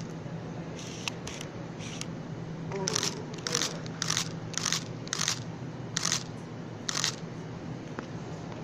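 Climbing rope hissing through a belay device in a series of short pulls, about two a second in the middle stretch, as the climber is lowered. A steady low hum runs underneath.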